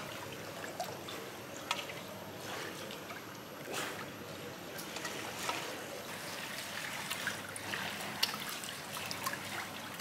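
Swimming-pool water lapping and trickling, with small splashes as bare feet move in it.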